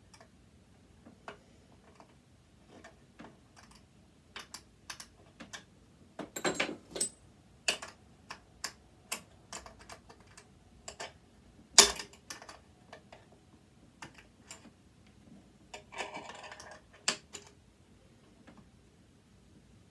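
Irregular clicks and taps of small hand tools and metal parts being handled while a machine is taken apart, with brief scraping rattles around six and sixteen seconds in and one loud sharp knock about twelve seconds in.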